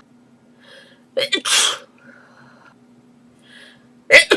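A girl sneezing twice, each time a quick catching in-breath and then a sharp, loud sneeze. The first comes about a second in and the next starts near the end.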